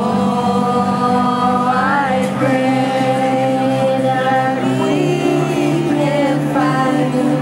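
A woman singing long, wavering notes into a microphone over sustained keyboard chords; the low held chord tones shift to a new pitch twice.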